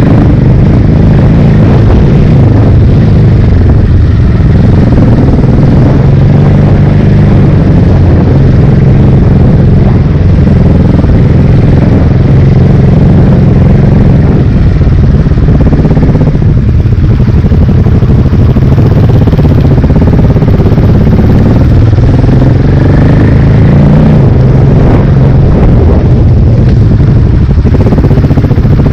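Big single-cylinder enduro motorcycle engine heard loud and close from the rider's own bike, running continuously on a dirt trail, its note rising and falling with the throttle.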